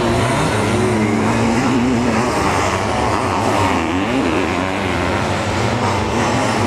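Sidecar motocross outfits' engines racing at high revs, loud, with the engine pitch rising and falling repeatedly as the throttle is opened and closed through the jumps and corners.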